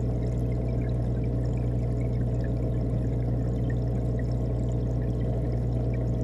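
Aquarium running water and pump hum heard underwater through a camera's waterproof housing: a steady low hum under a muffled, churning rush, with faint scattered ticks.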